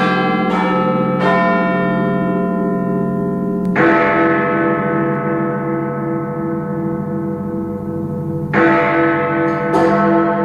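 Big Ben's clock bells striking, each stroke ringing on in a long, throbbing hum. Two heavy strikes land about five seconds apart, with lighter bell strikes between and around them.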